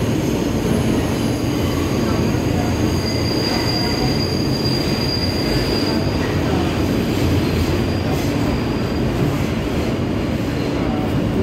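Inside a moving R160 subway car in a tunnel: the steady, loud rumble of the train's wheels on the rails. A high-pitched squeal of steel wheels on the rail starts about two and a half seconds in, is loudest for the next few seconds, and fades out around nine seconds.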